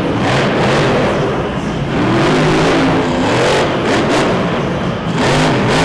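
Devastator monster truck's supercharged V8 engine revving hard, its pitch rising and falling several times as the throttle is worked.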